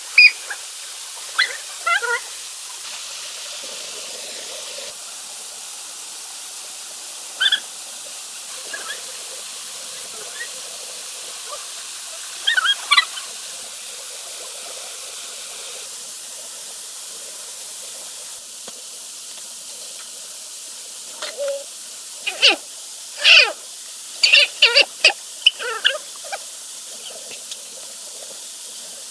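Steady rushing of a nearby waterfall, with scattered short, sharp sounds over it, a quick run of them a little before the end.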